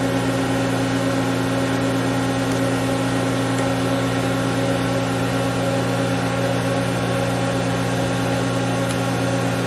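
Mori Seiki GV-503 CNC vertical machining center running with its spindle started, a steady machine hum of several held tones with no change in speed.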